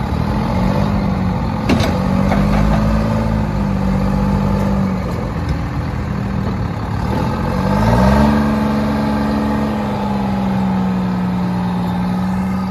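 Diesel engine of an old Terex wheel loader running under load as the machine maneuvers. It revs up about seven to eight seconds in, the pitch rising and then holding, with a single knock near two seconds in.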